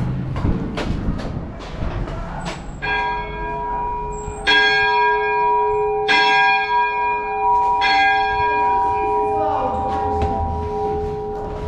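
Large church bell struck four times, about a second and a half apart, each stroke ringing on in the same long humming tones, which fade away near the end.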